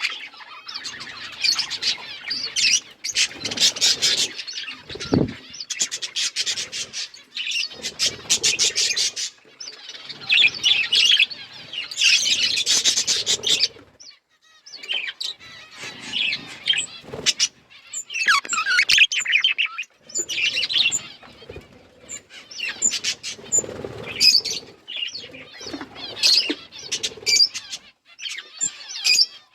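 Budgerigars chirping and chattering in rapid, high-pitched bursts with short pauses between them.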